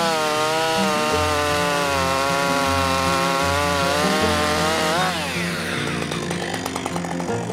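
Husqvarna 555 two-stroke chainsaw at full throttle, running steadily under load as the chain cuts through a thick log. About five seconds in it breaks through: the revs rise sharply for a moment, then fall away as the throttle is released.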